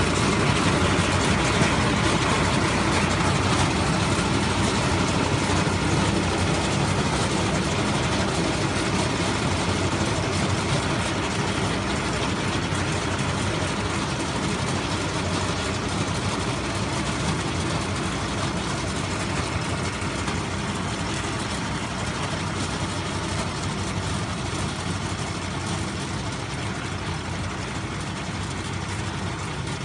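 Tractor with a mounted reaper, its diesel engine running steadily and slowly growing fainter.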